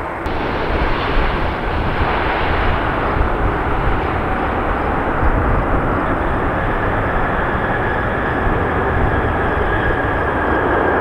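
Jet engines of a twin-engine wide-body airliner at high thrust on its takeoff roll: a loud, steady roar, with a steady whine joining about halfway through.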